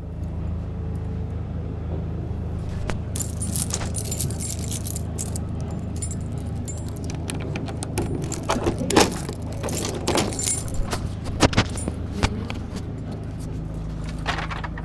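Steady low hum of a car running, heard from inside the cabin, with metallic jingling and clinking from about three seconds in until near the end.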